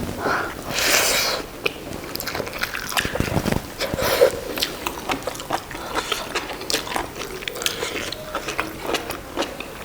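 Close-up wet chewing and mouth sounds of people eating boiled buffalo innards, with many small sharp clicks and smacks. A brief louder noise comes about a second in.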